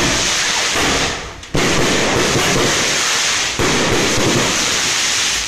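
Ground firework spraying sparks with a loud, continuous hiss and crackle. It dies down about a second in, surges back suddenly at about one and a half seconds, and stops near the end.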